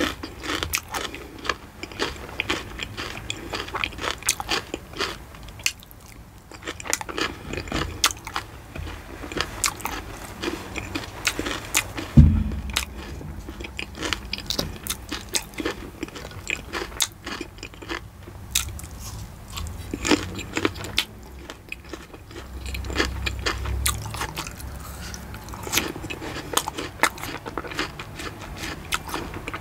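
Close-miked eating: biting and crisp, crunchy chewing of fruit and cookie, with many sharp clicks. A single heavy thump comes about twelve seconds in.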